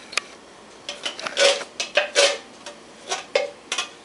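Metal utensil scraping and knocking against metal cookware as canned pasta sauce is emptied into the pot: a sharp click near the start, then a series of short scrapes and clinks.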